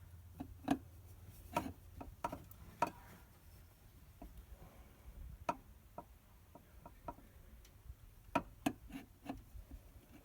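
Scattered light clicks and knocks at irregular intervals, with a faint low rumble underneath, from parts and tools being handled during hands-on work on the truck.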